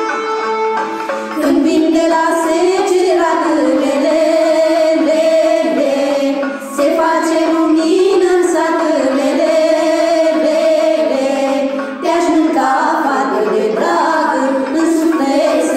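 A group of girls and young women singing a Romanian folk song together. They come in about a second in after an instrumental passage, and the phrases break briefly around six and twelve seconds in.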